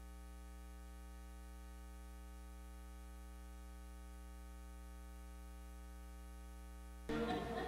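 Steady electrical hum with many evenly spaced overtones, the room sound cut away beneath it. About seven seconds in, the room sound comes back in suddenly.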